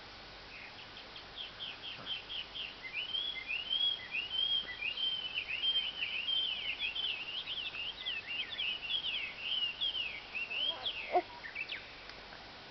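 Birds chattering: a long, fast run of chirps and warbling twitters that fades out near the end.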